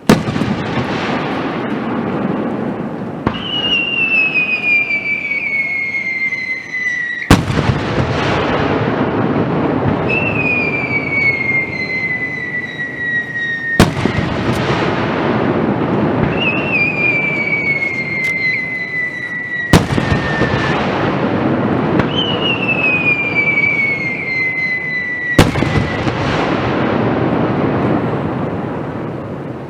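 Aerial fireworks shells bursting: five loud bangs about six seconds apart, each followed by a long rumble and crackle. Before each of the last four bangs a whistling shell climbs, its whistle falling in pitch until the burst.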